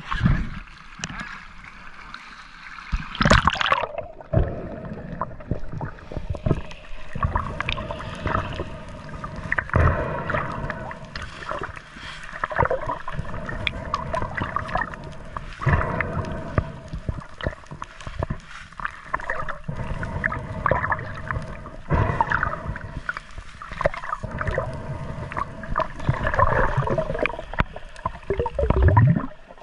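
Water gurgling and sloshing, recorded in or under the water, in irregular surges, over a faint steady hum.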